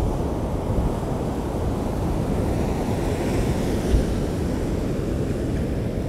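Strong storm wind buffeting the microphone over the rush of surf from hurricane-driven waves, with a brief swell of hiss near the middle and one sharp gust thump about four seconds in.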